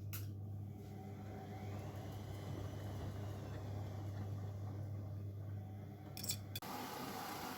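Bosch Maxx washing machine running mid-wash with a steady low motor hum. About six seconds in there are a few sharp clicks, the hum stops, and a steady rushing hiss begins.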